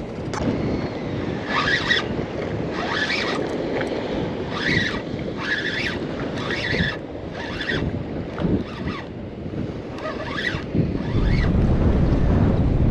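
Wind buffeting the microphone over choppy sea water around a small boat, with a short scratchy sound repeating roughly every second. About eleven seconds in, a deeper rumble of wind or water comes in and stays louder.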